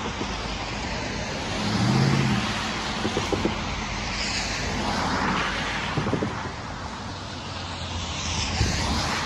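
Cars passing over a wet road, their tyres hissing on the wet pavement. The hiss swells as vehicles go by around four to six seconds in and again near the end, with a deeper engine hum from one vehicle about two seconds in.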